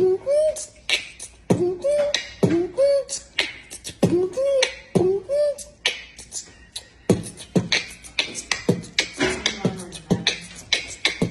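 Beatboxing: a steady beat of mouth-made drum sounds mixed with short sung notes, about two beats a second.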